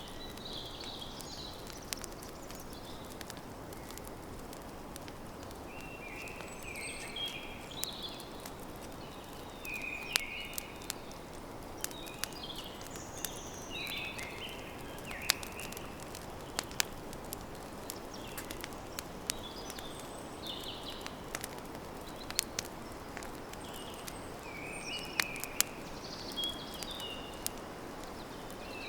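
Campfire crackling, with sharp pops every second or two over a steady hiss, while birds chirp off and on in short high notes.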